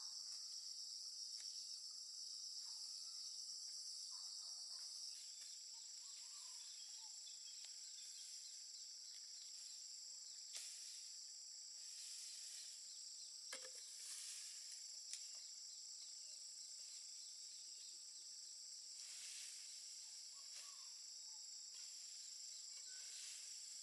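Steady, high-pitched insect chorus, with a few faint knocks in the middle.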